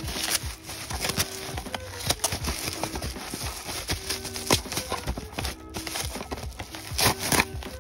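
Bubble wrap crinkling and rustling as it is pulled off a cardboard model-wagon box, with many short irregular crackles.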